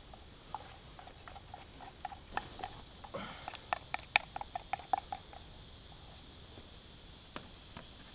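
A spoon clinking and scraping in a metal camp cup while cornmeal batter is stirred: a quick run of light taps, each with a short metallic ring, coming fastest a little past the middle and stopping soon after. One more click comes near the end.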